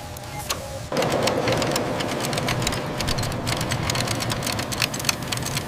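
Factory machinery running, a dense clatter of rapid clicks over a steady whir, starting abruptly about a second in.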